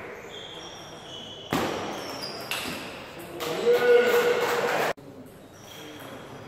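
Table tennis hall: faint short pings of balls on other tables, a sudden loud noise about one and a half seconds in, and a loud voice from about three and a half seconds in that cuts off suddenly near five seconds.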